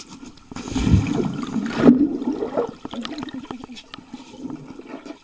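Water churning and bubbling, heard from under the surface of a swimming pool as a dog paddles close by. A loud rush of water begins about half a second in and lasts just over a second, then settles into gurgling with many small crackling bubbles.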